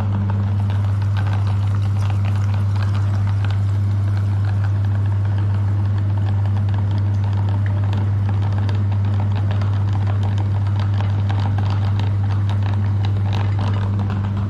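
Electric meat grinder running, a steady low motor hum, with dense crackling and rattling as frozen ice cream is forced through it.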